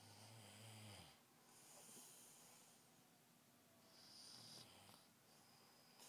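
A man snoring in his sleep: a low snore at the start, then a breathy exhale, and another snore about four seconds in.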